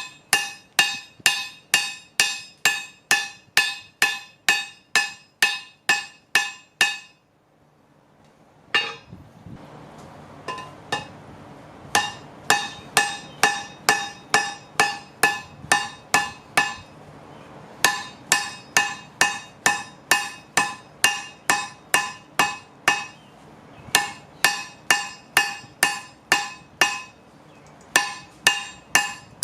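Blacksmith's hammer striking steel on an anvil in steady runs of about two blows a second, each blow ringing. The blows break off for a couple of seconds about seven seconds in. When they resume, a steady rushing noise runs beneath them.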